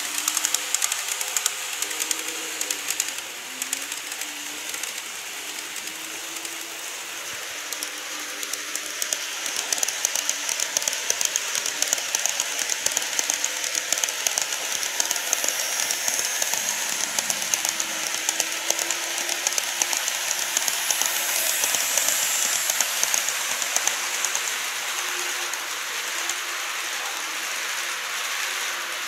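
Model electric trains running on sectional track: a steady, dense clicking of small wheels over the rail joints, with a faint wavering motor tone underneath.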